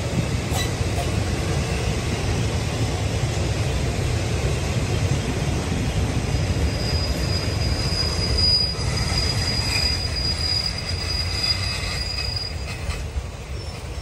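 Passenger train coaches rumbling along the rails as the train runs away round a curve, with a long steady high-pitched wheel squeal from about halfway through. The rumble fades near the end.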